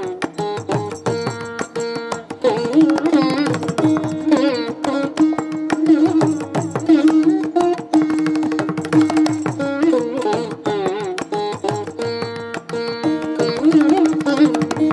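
Background Indian classical music: an ornamented melody with sliding notes over a steady pattern of drum strokes.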